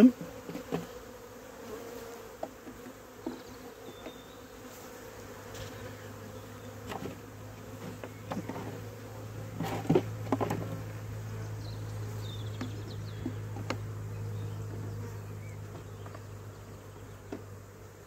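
Honeybees buzzing around an open hive, a steady hum that grows louder about halfway through. A few sharp knocks come as the wooden hive parts are handled.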